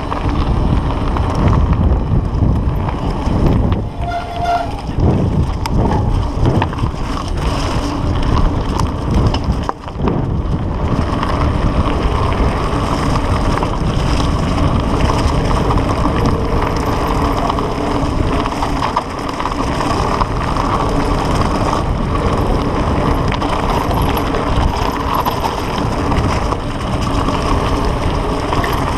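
Mountain bike rolling fast downhill on a gravel and dirt track: steady tyre noise over the loose surface under heavy wind rush on the microphone, with a brief lull about ten seconds in.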